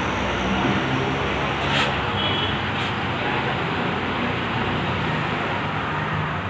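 Steady road traffic noise, with two short sharp sounds about two and three seconds in.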